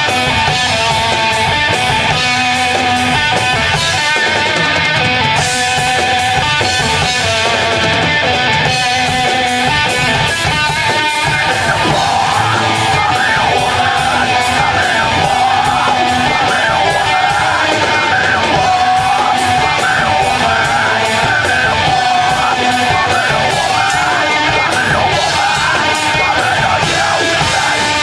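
Live band playing loud heavy rock, with yelled vocals over guitar and steady drum beats.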